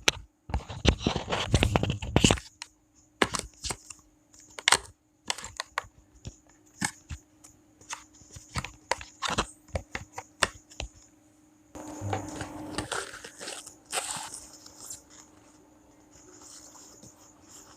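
Cardboard product box being opened and unpacked by hand: a stretch of tearing and rustling, then scattered clicks and knocks of packaging being handled, and another stretch of crinkling about twelve seconds in.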